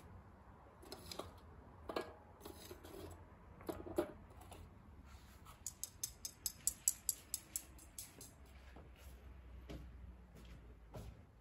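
Charcoal crackling as it catches in a chimney starter: scattered sharp pops, and a quick run of about half a dozen ticks a second around the middle, over a low steady hum.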